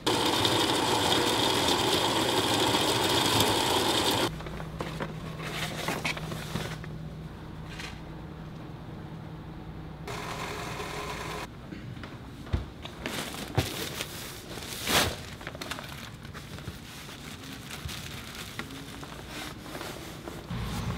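Electric coffee grinder running for about four seconds. Quieter kitchen handling sounds follow: a steady low hum, a short rustle as ground coffee is poured into a paper filter, and a few sharp clicks and knocks.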